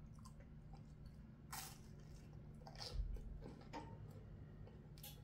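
A person biting into and chewing a zapiekanka, a toasted open baguette with melted cheese: a few faint bites and chews, the loudest about three seconds in.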